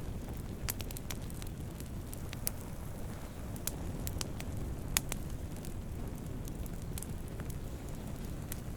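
Wood campfire burning with a steady low rumble of flames and irregular sharp crackles and pops, the loudest pop about five seconds in.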